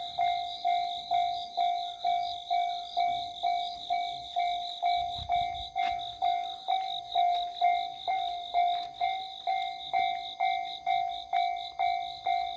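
Japanese railway level-crossing warning bell ringing 'kan-kan', an even train of ringing strikes about two and a half a second, signalling that a train is approaching.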